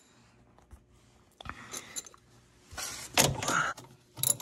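A socket ratchet being worked on a snowmobile's rear-suspension track-adjuster bolt, loosening the track. There are a few single clicks and knocks, then about a second of dense rattly clicking a little under three seconds in.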